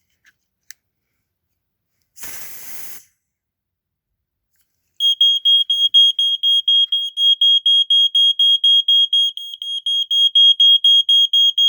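A short hiss of aerosol smoke-test spray, then a couple of seconds later a 1980s Dicon smoke alarm goes off, set off by the test smoke: a loud, shrill, high tone pulsing rapidly, several times a second.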